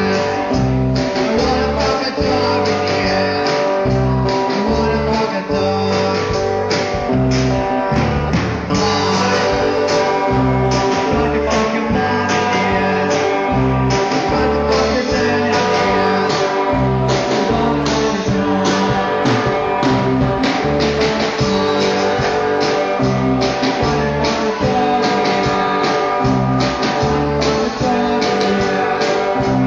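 Amateur rock band playing live: guitars strummed over a drum kit keeping a steady, driving beat.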